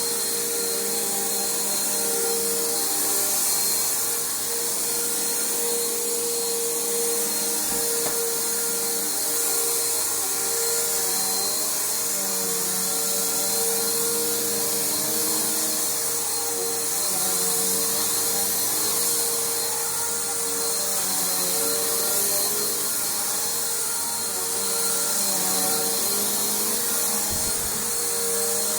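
Bissell PowerForce Bagged upright vacuum cleaner running steadily while being pushed over carpet, a continuous motor whine with airflow hiss.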